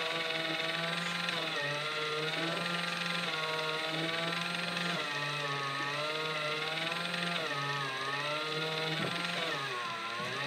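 Small battery-powered motor of a toy pottery wheel whirring steadily while spinning clay. Its pitch wavers up and down, with dips about eight and ten seconds in.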